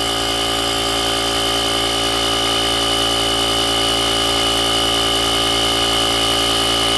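The JF.EGWO 3400A jump starter's built-in air compressor running steadily while pumping up a tire from about 9 toward 11 PSI: a constant hum with a high whine over it.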